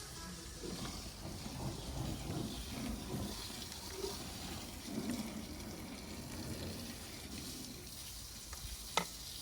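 Food frying and sizzling in a pan while being stirred, with irregular scraping sounds over the first few seconds. A single sharp click near the end.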